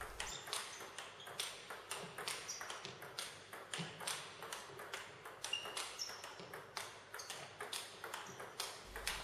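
Table tennis rally: the ball clicking off the bats and bouncing on the table in a steady rhythm, a few sharp knocks a second.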